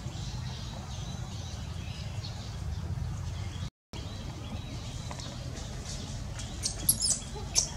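Outdoor ambience: a steady low rumble with faint, high bird chirps. It cuts out briefly about halfway through. Near the end come a few sharp, high squeaks, the loudest sounds here.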